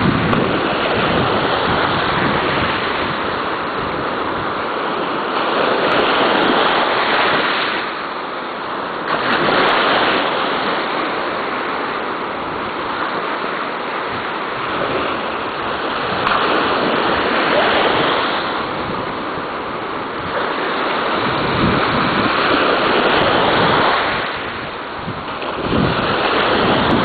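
Ocean waves washing, with wind on the microphone; the wash swells and fades every few seconds.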